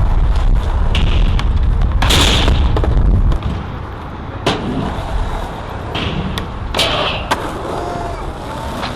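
Skateboard wheels rolling over concrete with a heavy rumble for the first few seconds, then several sharp knocks and clacks of the board, some with a short scraping hiss.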